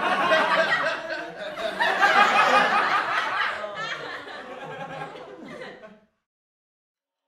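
Excited human voices laughing and exclaiming, which cut off abruptly about six seconds in.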